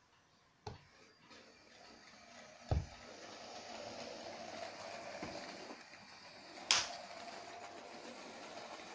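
Small electric motors of LEGO WeDo 2.0 race cars whirring steadily through their gears as the cars roll across a wooden floor. There is a low thump about three seconds in and a sharp knock, the loudest sound, near seven seconds.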